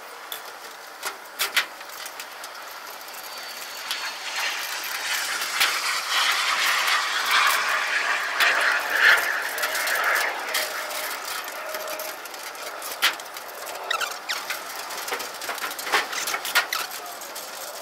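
Lumber being handled and stacked: scattered knocks and clicks of boards, with a longer stretch of scraping in the middle as wood slides against wood.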